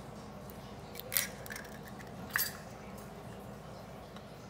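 An egg being opened into a ceramic bowl and the shell set aside: two light, sharp clicks of shell and hands against the bowl and counter, about a second and about two and a half seconds in.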